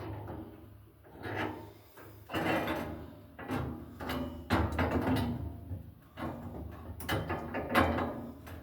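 Irregular metal knocks, clinks and rattles as hand tools and toolbox hardware are handled, over a low steady hum.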